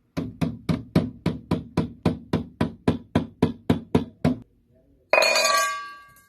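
A steady run of knocks, about four a second for some four seconds, then a short pause and a single struck hit that rings on with several tones and fades away.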